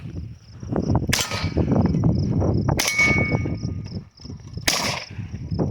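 Three gunshots from a Smith & Wesson M&P revolver firing .38s, about two seconds apart. Each is followed by the clang of a hit steel target, the middle one ringing on briefly.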